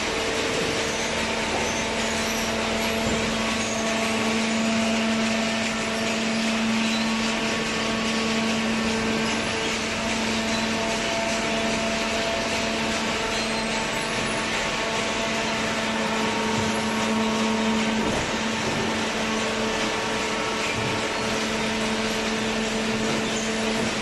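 Running horizontal cardboard baler and its feed conveyor: a steady machine hum with a constant low drone and no breaks.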